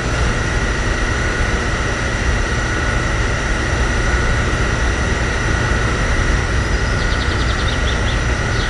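Small DC water pump motor inside a homemade toy fuel dispenser running steadily while it pumps, a constant hum with a high whine over a low rumble.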